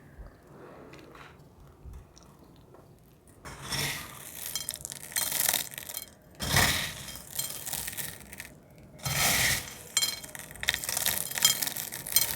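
Brittle dried cornstarch film being crushed and crumbled, with crisp crackling and glassy clinking of the flakes in several bursts starting about three seconds in.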